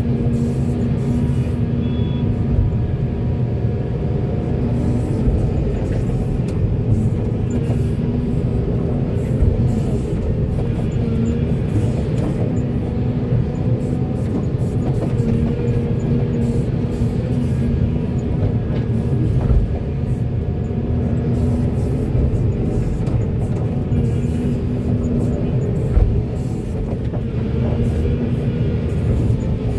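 Heavy diesel machinery running steadily under load, the engines of an excavator and dump truck, with a few short knocks.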